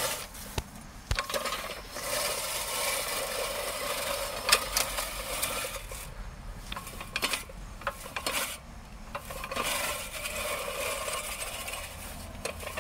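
Craftsman Quiet Cut 18-inch manual reel mower being pushed through short grass: the spinning reel blades rasp and swish against the bed knife, with sharp clicks and a couple of brief pauses.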